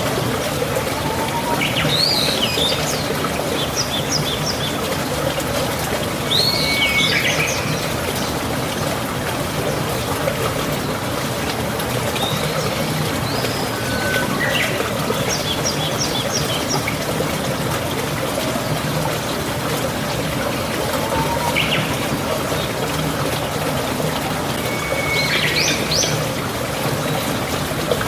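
Steady rush of running water, like a small stream or trickle, with short bird chirps and calls breaking in now and then over it.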